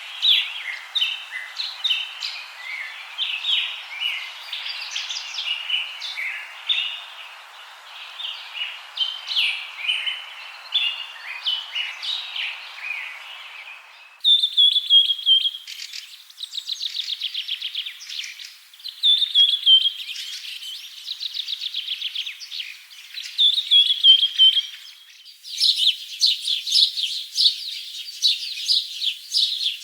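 Small birds chirping and trilling in quick, high notes. There is a busy mix of short calls over a steady hiss at first. The recording changes abruptly about halfway through to fast rattling trills, with another abrupt change near the end.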